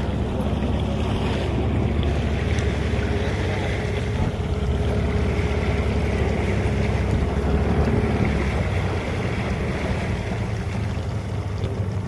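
Boat engine running steadily under way, with choppy water washing along the hull and wind buffeting the microphone.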